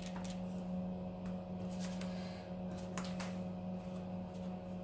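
A fork pricking puff pastry squares on a parchment-lined baking tray, a few light sharp taps, over a steady low hum.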